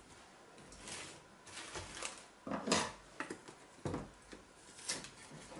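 Light handling sounds on a kitchen counter: about five short knocks and rustles as cream cartons and a pair of kitchen scissors are picked up and moved.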